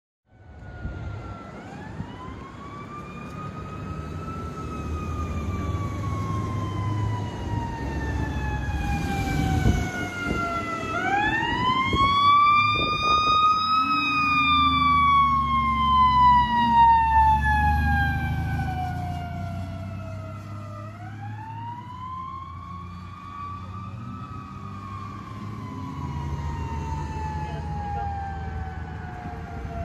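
Fire engine's siren wailing on an emergency run: three long cycles, each a quick rise followed by a slow fall in pitch, with the truck's engine and tyres rumbling underneath. It grows louder as the truck approaches, peaks mid-way as it passes and fades as it moves off.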